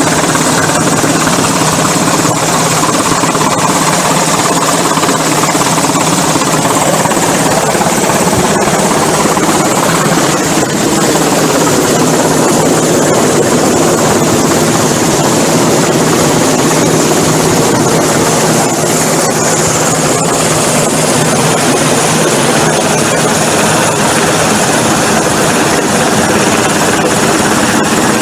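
Rescue helicopter's rotor and turbine running loud and steady, with a dense wash of rotor noise and a low engine hum.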